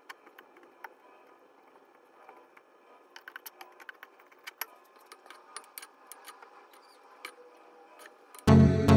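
Scattered light clicks and taps, with a quicker run of them around the middle. Loud background music cuts in near the end.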